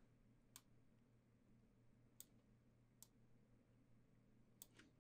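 Near silence broken by five faint, sharp computer mouse clicks, spread out, the last two close together near the end.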